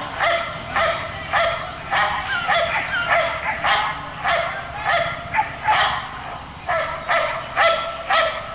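German shepherd puppies barking and yipping in play, short high-pitched barks about two a second.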